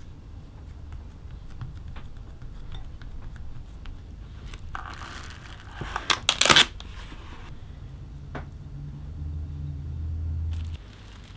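Plastic cling film pulled off its roll with a crinkling rustle, then torn off in a few sharp rips about six seconds in. Near the end a low hum rises and stops suddenly.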